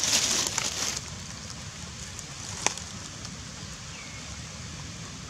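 Dry crackling and crunching of a fibrous coconut husk and dry leaves as macaques handle it, loud for about the first second, then a steady faint hiss with one sharp click near the middle.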